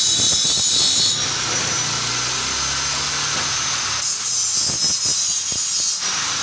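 Metalworking noise in a welding shop: a loud, steady hiss with crackle that changes texture about a second in, carries a low steady hum for a few seconds, and shifts back to the sharper hiss around four seconds.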